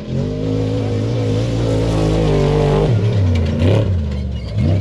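Off-road race truck's engine at high revs as it speeds past on a dirt course. The pitch wavers, drops sharply about three seconds in, then climbs again near the end.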